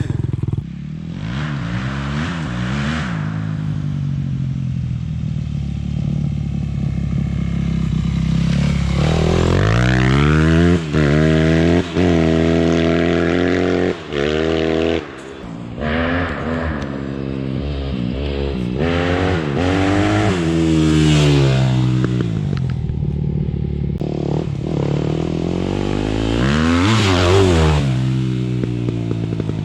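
Yamaha WR250R's single-cylinder four-stroke engine through an Akrapovič exhaust, revved up and let back down several times, with a few brief breaks in the sound midway.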